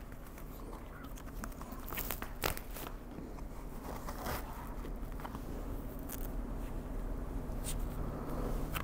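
Handling noise from a flexible plastic skull face mask and its head strap being pulled on and fastened behind the head: rustling and scraping with scattered sharp clicks, over a low steady hum.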